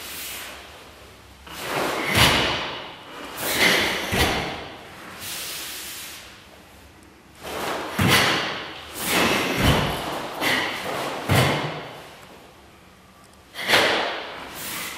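Thuds of feet stamping into a horse stance and swishes of a karate uniform during the kata Tekki Nidan. They come irregularly, every second or so, with two quieter pauses.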